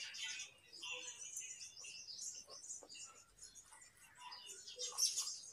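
Raw carrot crunching close to the microphone: a run of short, crisp crackles as it is chewed and cut, with one louder crunch about five seconds in.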